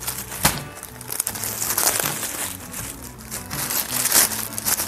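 Clear plastic bag crinkling and rustling in bursts as it is pulled open by hand, over soft background music.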